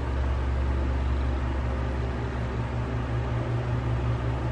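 Steady low hum with a faint hiss, holding an even level throughout.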